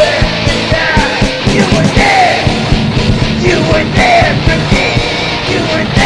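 Heavy rock song with a steady, driving drum beat, distorted electric guitar and a shouted vocal line.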